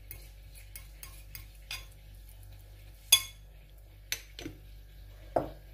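Metal fork scraping and clicking against a ceramic plate while mashing boiled garlic cloves: a string of light, irregular clicks, the sharpest about three seconds in, with a duller knock near the end.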